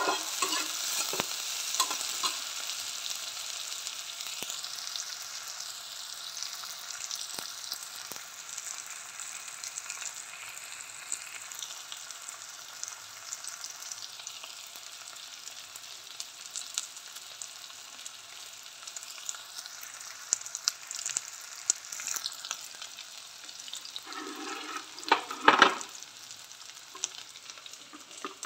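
Sliced onions and curry leaves sizzling in hot fat in an aluminium kadai, stirred with a steel slotted spatula that scrapes and taps against the pan, for light frying. A louder clatter comes near the end.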